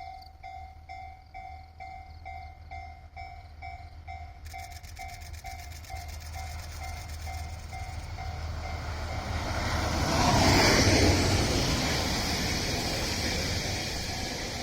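A level-crossing alarm bell dinging about three times a second, fading out as a train approaches and passes close by. The train is loudest about ten seconds in, then trails off into a steady hiss.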